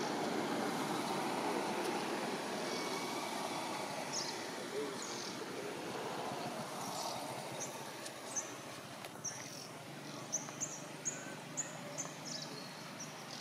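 Short, high-pitched bird chirps over a steady rushing background noise. The chirps start about four seconds in and come quicker and louder near the end, while the rush slowly fades.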